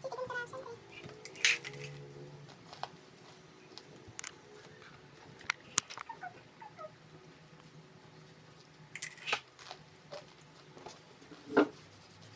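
Close-miked eating sounds: chewing and mouth clicks with scattered sharp clicks and taps from eating food, a few of them louder.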